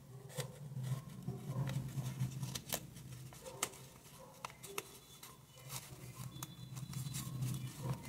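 Folded origami paper handled by fingers: irregular soft rustles and small crisp clicks as paper units are slotted together and pressed into place, over a low steady hum.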